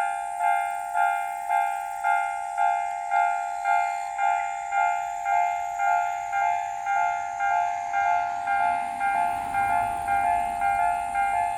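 Japanese railway level crossing warning alarm: an electronic two-tone chime ringing evenly about twice a second. From about eight seconds in, a low rumble rises underneath as a train draws near.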